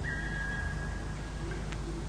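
Ghost sound effect: a sharp click, then a high, steady whistle-like tone held for about a second and a half over a low steady rumble, with another click near the end.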